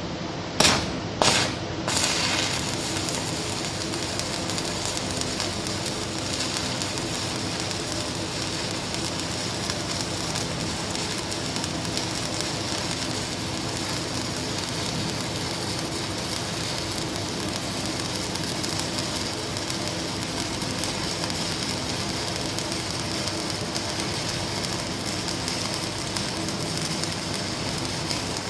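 Welding arc on a pipe joint: three sharp bursts in the first two seconds as the arc is struck, then a steady crackle as the weld bead is run, with a faint steady machine hum underneath.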